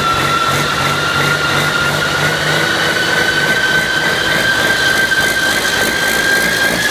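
Cummins QSM11 inline-six turbo diesel running on a workshop test stand, a steady diesel note with a high whine that rises slowly in pitch.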